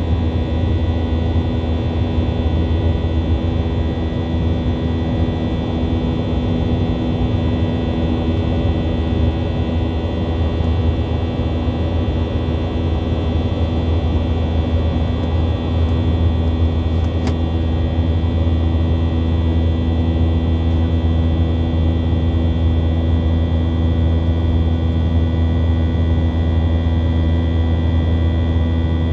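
Cabin noise of a Boeing 737-800 in flight, heard at a window seat: its CFM56-7B turbofan engines running steadily, a deep rumble with several steady whining tones on top.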